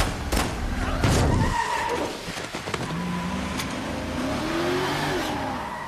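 Film car-chase sound: two sharp bangs in the first second or so, then a taxi's engine revving up and down as its tyres skid and squeal on a wet road.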